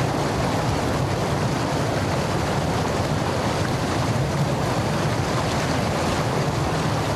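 Floodwater rushing steadily through a road culvert.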